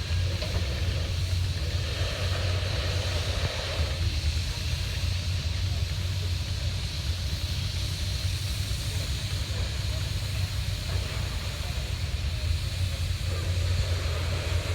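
Steady low rumble of running machinery with a constant high hiss over it.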